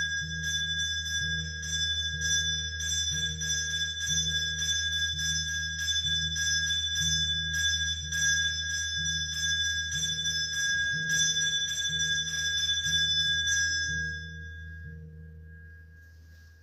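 Brass temple hand bell rung steadily during an arati, about two strokes a second, with a clear ringing tone over a low steady hum. The ringing stops about fourteen seconds in and dies away.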